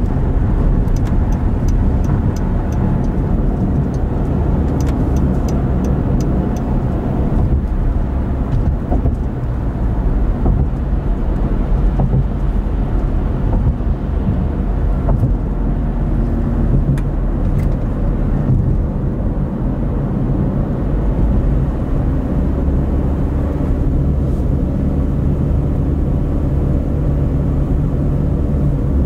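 A car cruising on a motorway, with steady engine hum and tyre and road noise. A run of faint, evenly spaced ticks comes through during the first several seconds.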